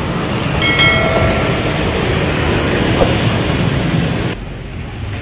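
Street traffic noise, a steady rumble from motorbikes and cars, with a brief high squeal about a second in. Shortly before the end the noise drops suddenly to a much quieter background.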